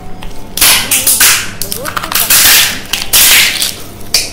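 A series of about six loud, short swishing noises right at the microphone, each lasting under a second.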